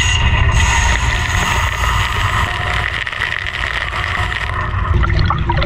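ONA AB35 wire EDM flushing and filling its work tank with deionized water: a steady rush of water over a machine hum. Gurgling and dripping start near the end.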